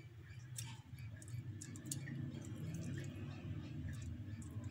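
Faint clicks and soft scrapes of a metal spoon pressing chicken filling into hollowed bread cases on a foil-lined tray, over a low steady hum.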